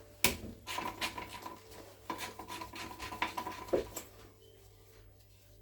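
Metal hand tools clinking and scraping against a van gearbox during strip-down: a sharp clank about a quarter second in, then a run of small metallic clicks and rattles with a faint ringing, dying away after about four seconds.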